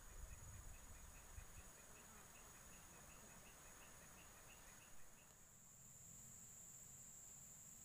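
Near silence, with faint outdoor ambience of insects: a steady high-pitched buzz throughout, stronger after about five seconds, and a rapid series of faint chirps that stops about five seconds in.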